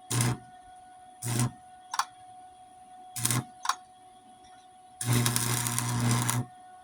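Electric arc welder striking short arcs on a steel lawnmower deck, crackling with a low buzz: five brief bursts, then one arc held about a second and a half near the end. Short stitch welds laid to fill a hole burned through the deck.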